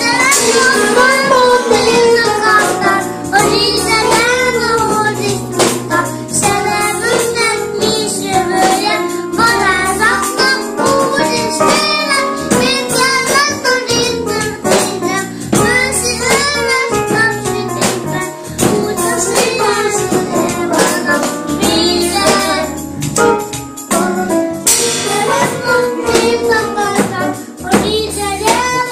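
A song playing: a sung melody over a backing track with steady bass notes and jingling percussion.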